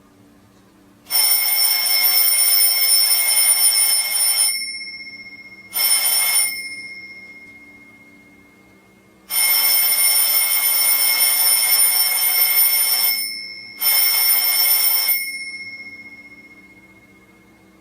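Alarm clock bell ringing in four bursts, two long and two short. After each burst the bell rings on and fades away.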